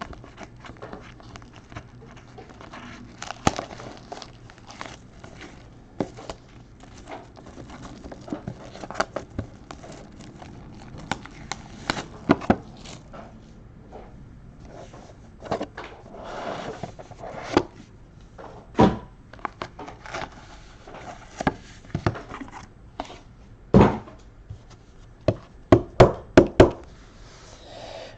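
Trading cards being handled on a table: scattered light clicks and taps with some rustling, and a run of louder knocks near the end.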